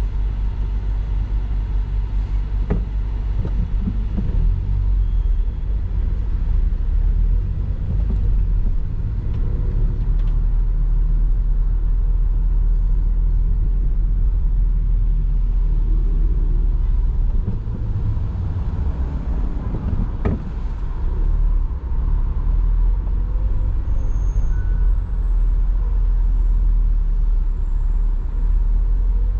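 Car driving in city street traffic: a steady low rumble of road and engine noise. A short, sharp sound stands out about twenty seconds in.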